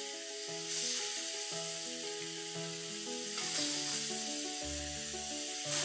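Marinated chicken pieces sizzling on a hot grill pan, the sizzle swelling a few times as marinade is poured over them. Background music with sustained notes plays along.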